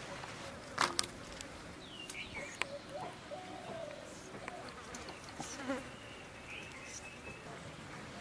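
A flying insect buzzing faintly, with a couple of sharp snaps about a second in as taro stems are broken and peeled by hand, and small birds chirping now and then.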